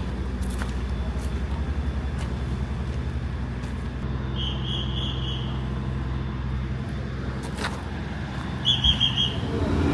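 A steady low engine drone runs throughout. Two short runs of rapid high-pitched beeps come through it, one about halfway in and one near the end.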